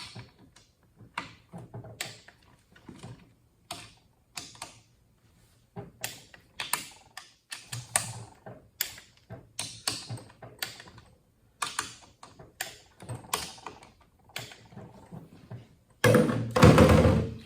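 Irregular sharp metallic clicks and knocks of hand tools working bolts on a transmission case, a few every second. Near the end comes a louder, denser burst of sound about a second and a half long.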